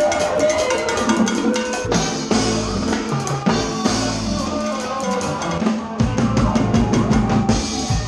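A live Latin band playing, with the drum kit and percussion loud at the front of the stage monitor mix. Around five to six seconds in comes a rapid run of drum hits, after which the bass and full band come in heavier.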